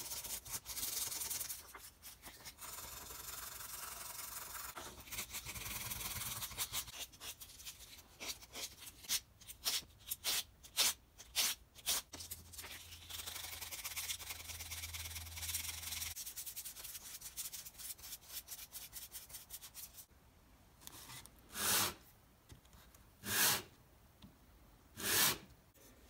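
Sandpaper rubbed back and forth by hand over the wooden rear handle (tote) of a Stanley No. 5 bench plane, sanding off glue over a repaired crack. Long runs of scratchy rubbing, a stretch of quick separate strokes in the middle, and three slower single strokes near the end.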